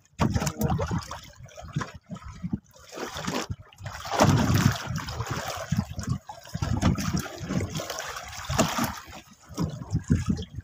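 Water splashing and sloshing in irregular surges, loud and uneven.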